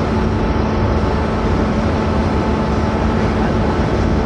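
Electric locomotive standing at the platform with its cooling blowers running: a loud, steady whir with a faint, even hum.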